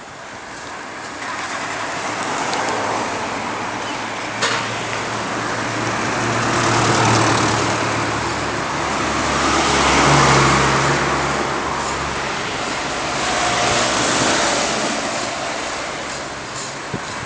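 Road traffic: several cars passing one after another, each swelling and fading, with an engine's low hum under the middle stretch. A single sharp knock about four seconds in.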